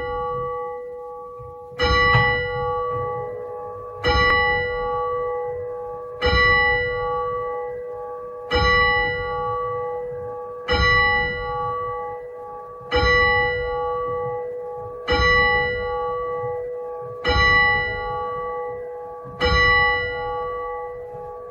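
A single church bell tolling, one stroke about every two seconds, always at the same pitch, each stroke ringing on and fading into the next.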